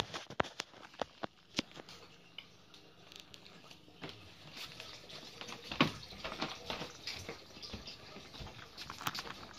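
Handling noise from the recording phone being carried and covered: irregular taps, knocks and rubbing on the microphone, the sharpest clicks in the first second or two.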